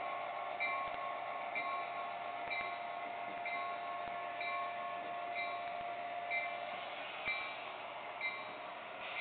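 HO-scale model EMD F7 locomotive's sound-system bell ringing, about one stroke a second, over a steady hum from the running model train.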